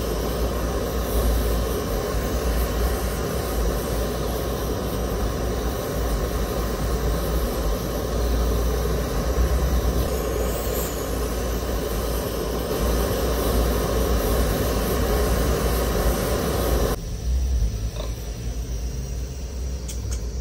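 Gas ring burner running with a steady rushing noise that cuts off suddenly about three-quarters of the way through, followed by a few faint clicks.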